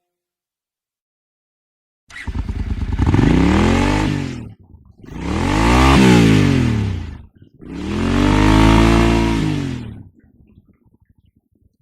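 An engine revved up and back down three times in a row, each rev about two seconds long, its pitch rising then falling.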